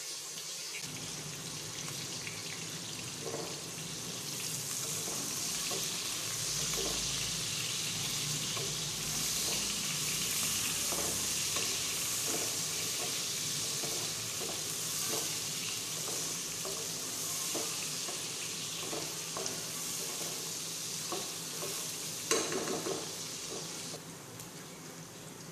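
Sliced onions sizzling in hot oil in a pan as they are fried toward light brown, with a spoon scraping and knocking against the pan as they are stirred. A sharper, louder knock comes near the end.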